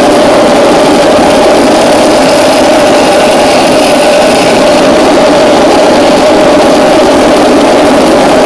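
Home-built turbocharger turbojet running steadily on a test stand: a loud, even roar with a steady mid-pitched drone running through it.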